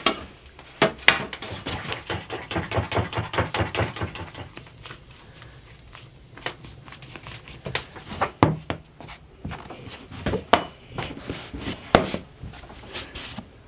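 Kitchen work on wood and dishes: a fast run of short taps for the first few seconds, then scattered knocks and clinks.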